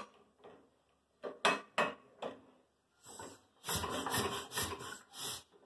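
A Fairmont railway speeder engine being turned over by hand, not yet running: a few sharp knocks, then from about halfway a quick run of loud, rough strokes, about four a second.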